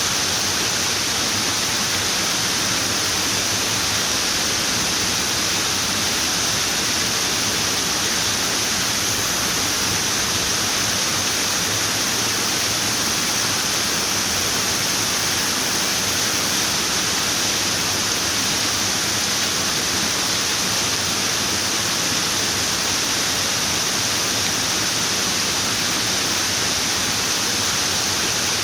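Running water: a steady, unbroken rush with no change in level, strongest in the high hiss.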